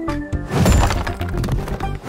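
Cartoon sound effect of heavy stone blocks shifting and crashing, loudest from about half a second in, over background music.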